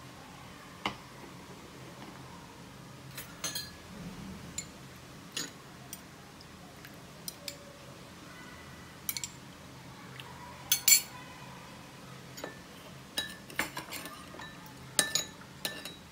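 Metal spoons clinking against small porcelain bowls: irregular single taps as liquid is spooned into a bowl of sauce, the loudest pair about eleven seconds in, then quicker clinks in the last few seconds as the sauce is stirred.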